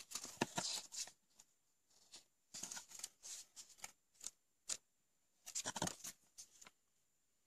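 Paper instruction booklet being handled and leafed through: soft paper rustling and page flips in three short bouts.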